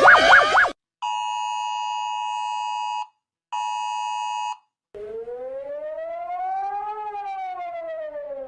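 Emergency alert tones. A fast warbling siren cuts off, then a steady two-note attention tone sounds twice, the first for about two seconds and the second for about one. A siren wail follows that rises for about two seconds and then falls.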